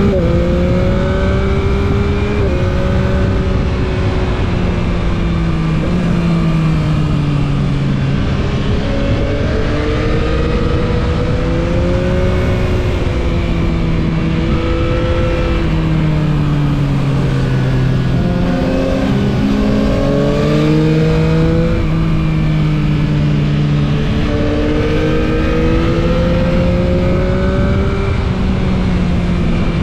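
Yamaha MT-09 SP's 890 cc three-cylinder engine under way, its pitch rising and falling again and again as the throttle is worked through the bends, over a constant rush of wind and road noise.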